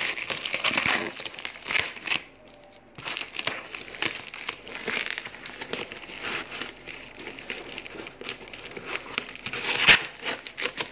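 Brown packing tape and cardboard crinkling and tearing as a tape-wrapped box is pulled open by hand, with a short lull about two seconds in and one louder rip near the end.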